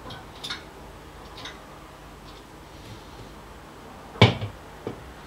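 Light clicks and taps of a counterflow wort chiller and its plastic tubing being handled and fitted onto a Grainfather's top plate, with one louder knock about four seconds in and a smaller one just after.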